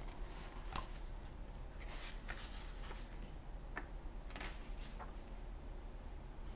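Pages of a paperback picture book being handled and turned: several short, papery rustles and flicks.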